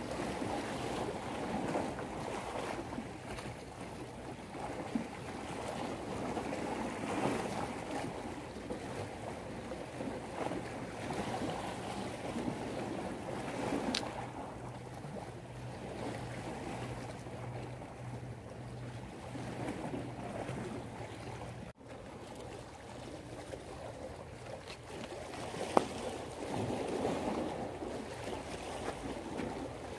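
Sea waves washing against a rocky breakwater with wind on the microphone. A steady low hum runs under it for the first two-thirds and stops abruptly, with a couple of sharp clicks.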